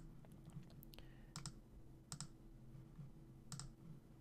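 Computer mouse button clicking: three clear clicks about a second apart, each a quick press-and-release pair, with a few fainter clicks, over a low steady hum.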